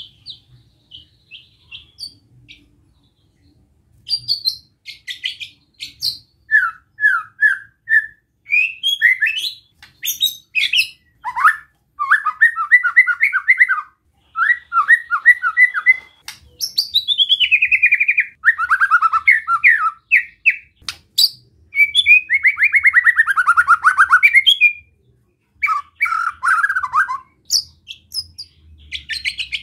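White-rumped shama (murai batu) calling in quick chattering series of sharp notes, broken twice by long harsh descending rasps: the 'besetan' call used to rile other shamas. It starts with a few faint chirps, then falls silent briefly before the loud calling begins.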